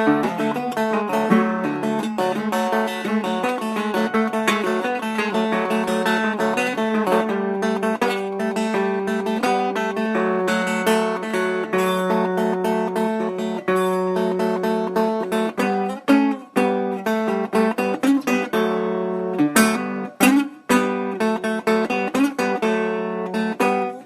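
Slide guitar music on acoustic guitar: plucked and strummed notes over a steady low drone string, with a couple of brief breaks in the playing after about 16 and 20 seconds.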